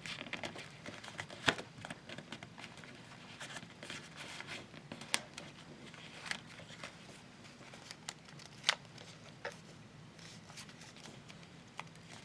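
Sheet of paper being folded and creased by hand: scattered soft crinkles and sharp little paper clicks, the sharpest about a second and a half in and again near nine seconds.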